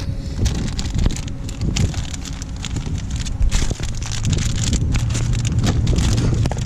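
Wind buffeting the microphone in gusts and crackles over a steady low rumble.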